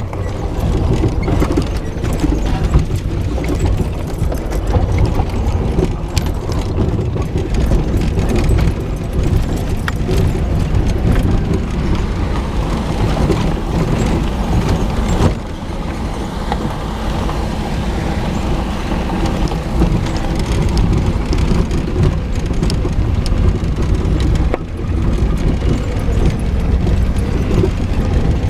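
Jeep engine running at low speed as it crawls over a rocky dirt trail, with tyres on gravel and frequent knocks and rattles from the bumps.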